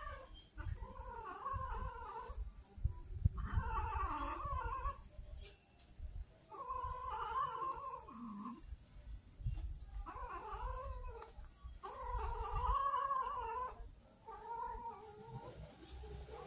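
Domestic cats yowling during courtship and mating: a string of about six drawn-out, wavering yowls, each a second or so long.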